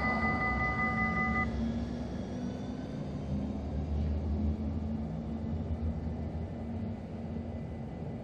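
Siemens Avenio low-floor tram moving away: a steady electric whine stops about a second and a half in, leaving a low rumble that fades as the tram recedes.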